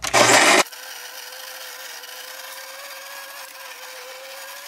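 De'Longhi electric coffee grinder grinding a two-shot dose of coffee beans: a loud burst of grinding for about the first half-second, then a steady motor whine.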